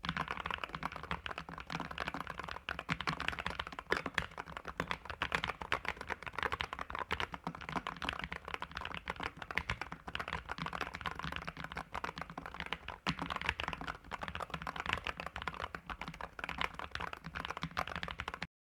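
Low-profile mechanical keyboard being typed on quickly, a steady stream of key clacks that starts and stops abruptly.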